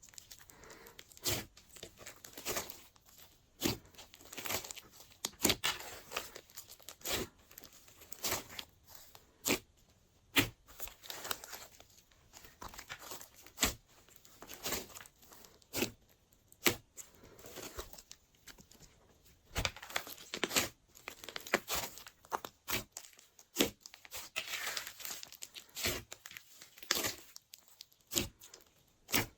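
Glossy slime being stretched, folded and squished by hand, giving irregular sticky clicks and pops with crackling in between.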